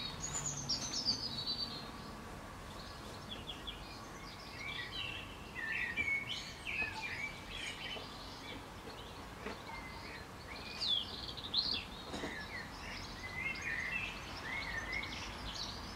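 Songbirds chirping and singing, many short calls overlapping, over a faint steady outdoor background.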